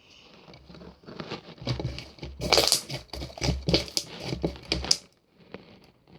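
Mint candies being handled, giving crinkling, crackling sounds in short irregular bursts with soft low thumps, for about four seconds from a second in.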